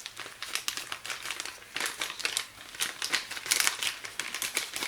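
A bag of glutinous rice flour being handled, crinkling and rustling in a run of quick, irregular crackles as flour is taken from it.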